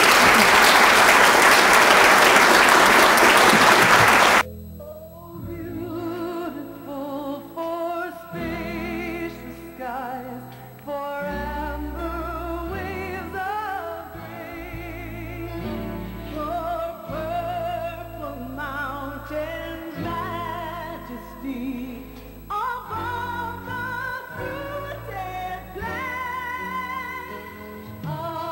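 Audience applauding for about four seconds, then cut off abruptly by music: a sung melody with strong vibrato over sustained low notes.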